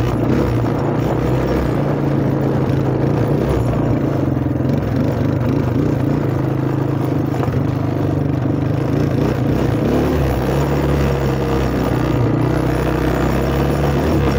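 Engine of a 1985 Suzuki four-wheeler (ATV) running steadily, its pitch shifting a little now and then.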